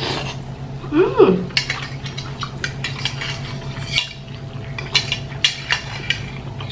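Metal fork and spoon clinking and scraping against a nearly empty ceramic bowl in quick, irregular strikes. About a second in there is a short voice-like mouth sound, and a steady low hum runs underneath.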